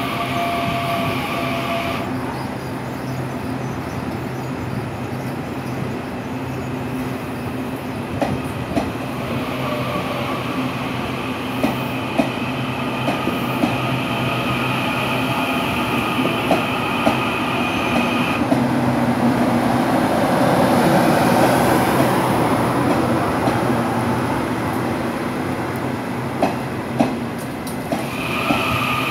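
Taiwan Railways EMU800 electric multiple-unit train rolling slowly past, with a steady rumble and a steady electric whine in several tones that drops out early, comes back midway and again near the end. Sharp wheel clicks come here and there over the rails.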